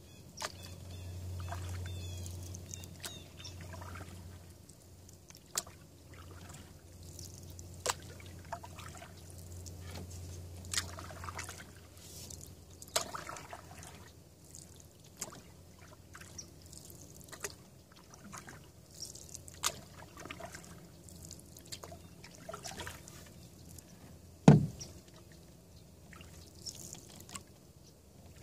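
Canoe paddle strokes through calm water, about one every two to three seconds, with drips and trickles off the blade. A single loud knock, the loudest sound here, comes near the end.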